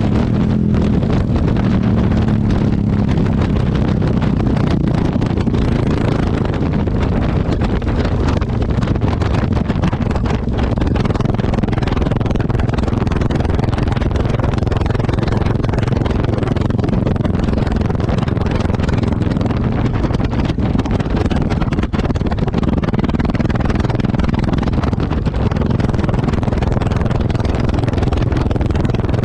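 Exhaust of a Yamaha XT660X's single-cylinder four-stroke engine, running steadily and heard close to the exhaust outlet.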